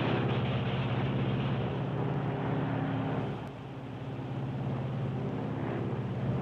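Lockheed Super Constellation's radial piston engines droning steadily in flight while the feathered number one propeller is being unfeathered. The drone dips briefly a little past halfway.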